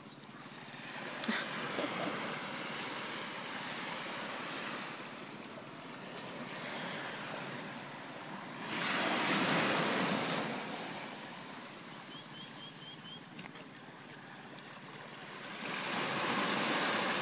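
Sea waves washing on a beach, the rushing noise swelling and fading three times, with some wind. A single sharp click sounds about a second in.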